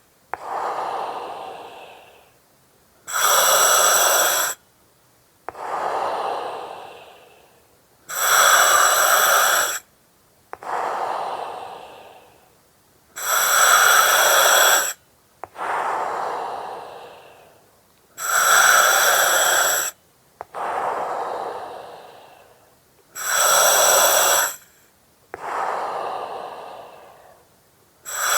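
Slow, steady breathing through an oxygen mask, about one full breath every five seconds. Each breath is a hiss of the mask's regulator that starts and stops abruptly, followed by a quieter breath that fades away.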